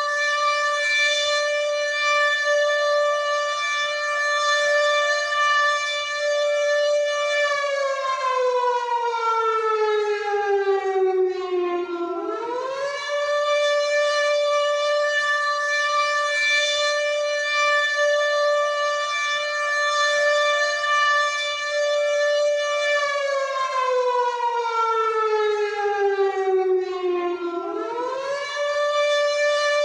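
WW2-style air raid siren wailing: a long held note that slides down in pitch over about five seconds and then sweeps quickly back up to the held note, twice.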